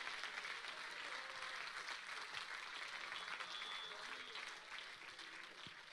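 Congregation applauding and shouting together, a dense patter of many hand claps mixed with scattered voices, easing off slightly near the end.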